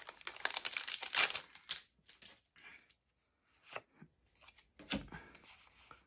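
Foil wrapper of a Pokémon trading-card booster pack being torn open and crinkled, then quieter rustles and small clicks as the cards are pulled out and handled, with a soft knock about five seconds in.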